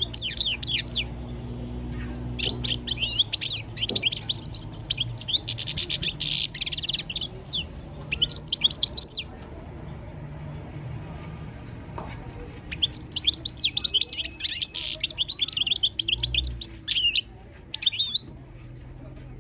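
European goldfinch singing its fast, twittering song in several bursts, with pauses of a few seconds between phrases. A faint steady low hum sits underneath.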